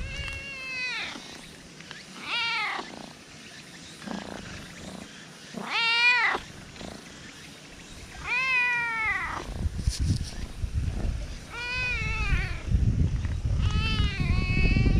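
Black cat meowing six times in short calls, each rising and then falling in pitch, with a low rumble under the second half.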